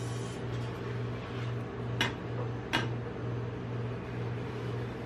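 Metal spatula tapping the steel cold plate of a rolled-ice-cream pan twice, two sharp clicks under a second apart, as it cuts the frozen ice cream sheet into strips. A steady low hum runs underneath.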